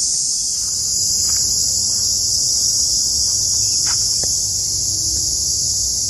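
Cicadas buzzing: a loud, steady, high-pitched drone that does not let up.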